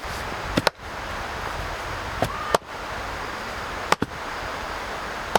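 Sharp knocks or strikes about every second and a half, the first one doubled, over a steady outdoor rushing noise.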